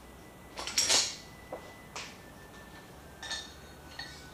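Metal hand tools and bolts clinking and rattling as they are handled at a motorcycle's front fork. The loudest cluster of clinks comes about a second in, followed by single clinks every second or so.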